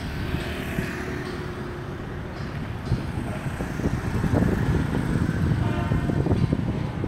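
Street traffic of motorbikes and cars passing, with a low rumble that grows louder in the second half, likely wind on the microphone.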